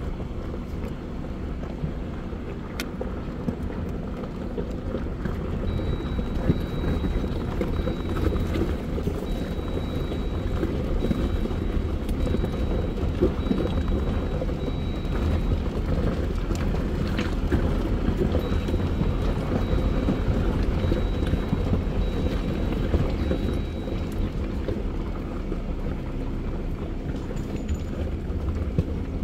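Jeep Wrangler driving slowly over a rocky gravel trail: a steady low rumble of engine and tyres, with occasional knocks and rattles as it goes over rocks.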